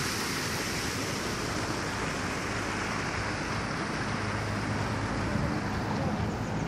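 Shallow stream running in a stone-lined channel, a steady rushing hiss that thins after a few seconds, with wind rumbling on the phone microphone, stronger near the end.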